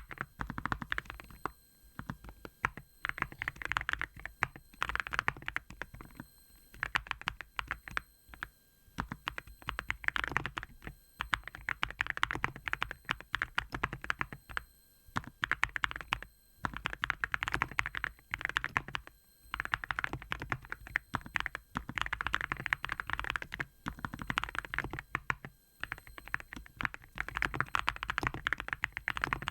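Cerakey Nada65 65% keyboard with ceramic keycaps being typed on in quick runs of keystrokes broken by brief pauses. The keystrokes are hard yet muted, tuned for a soft 'koto-koto' sound.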